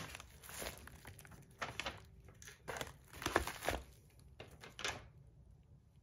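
Plastic padded mailer envelope crinkling in short, irregular rustles as it is handled and turned over. The rustling stops near the end.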